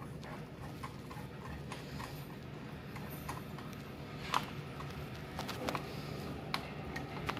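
Irregular light clicks and taps of hands handling the parts of a desktop computer during reassembly, the sharpest about four and a half seconds in, over a steady low hum.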